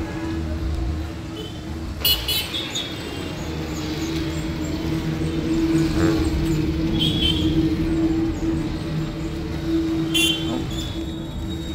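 Street traffic: vehicle engines running steadily, with short horn toots about two seconds in and again near ten seconds.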